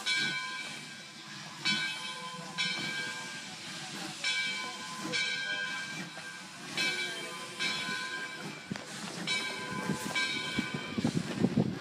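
Steam locomotive chuffing as it starts to move, each exhaust beat with a hooting ring, about one a second and coming a little faster, over a steady steam hiss. A low rumble builds near the end.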